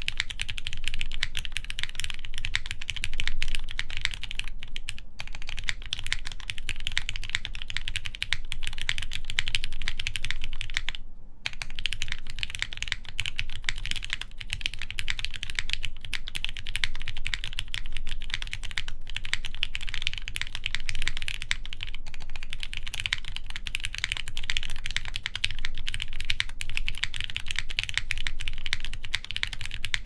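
Continuous fast typing on a plateless daji seis cero prototype mechanical keyboard with lubed Cherry-top ZealPC Tealios linear switches and GMK Dolch keycaps, the keystrokes running closely together. The typing breaks off very briefly about eleven seconds in.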